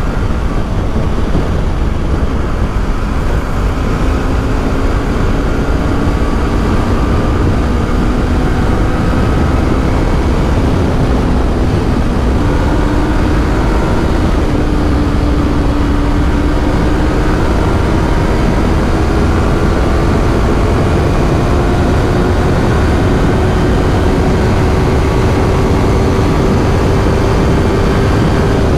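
Yamaha YZF-R3's parallel-twin engine running at a steady cruise, its exhaust note climbing slowly in pitch through the second half as the revs build, over a heavy low rush of noise.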